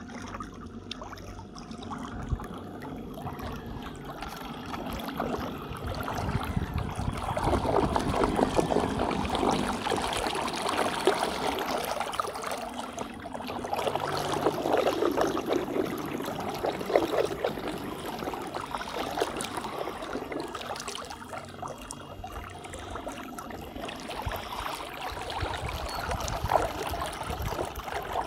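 Water churning and gurgling in the prop wash of a Watersnake 18 lb-thrust 12-volt electric trolling motor driving a small boat, steady but rising and falling in loudness.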